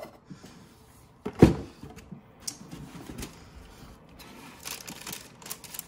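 Cardboard gift boxes handled on a table: one loud thump about a second and a half in, then the shoebox lid lifted and tissue paper rustling near the end.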